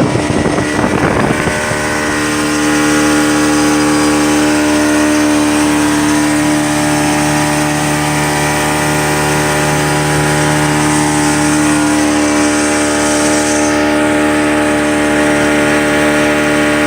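Yamaha 40 hp outboard motor running steadily at cruising speed, with a rough, irregular rush of wind or spray over it for the first second or so before it settles into an even drone.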